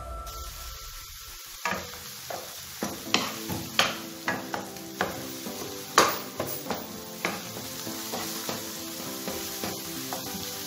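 Chopped onion and garlic sizzling in oil in a non-stick frying pan, softening at the start of a tomato sauce. From about two seconds in, a wooden spatula stirs them, making a run of sharp taps and scrapes against the pan, the loudest about six seconds in.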